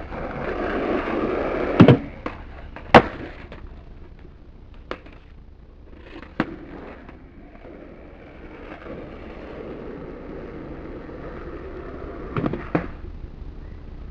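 Skateboard wheels rolling on concrete, swelling as the board approaches, then two loud board clacks about a second apart, followed by a few smaller clatters. Rolling comes back later and ends in another pair of clacks near the end.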